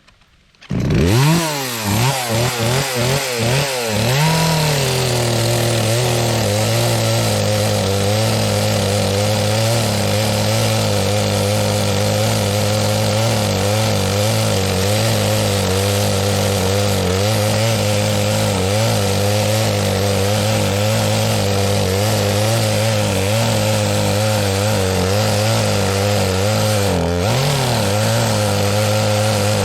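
Two-stroke chainsaw starting up, revved in several quick bursts, then running steadily at high speed with a slightly wavering pitch, as when the chain is held in a cut, with a brief dip in revs near the end.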